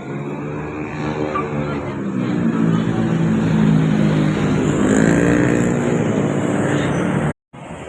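Telolet basuri multi-tone bus horn playing a tune of held notes that step and slide in pitch, growing louder over the first few seconds. It breaks off suddenly near the end.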